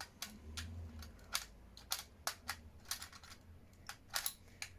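Irregular sharp snapping clicks, about three a second, as a charged disposable-camera flash capacitor is discharged into a sausage.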